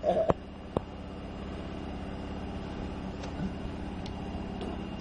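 A brief blown mouth 'fart' noise, a child's raspberry, right at the start, with two sharp clicks, then a steady low mechanical hum with evenly spaced tones.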